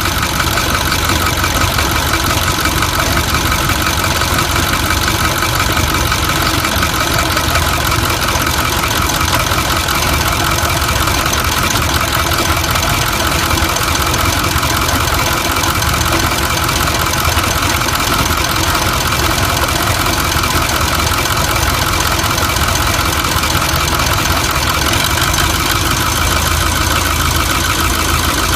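Ford 6.4 Powerstroke twin-turbo V8 diesel engine idling steadily.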